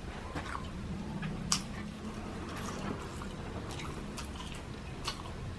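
Close-miked mukbang eating sounds: chewing lechon sisig, with wet, squishy mouth sounds and scattered sharp clicks, the loudest about a second and a half in and again near the end.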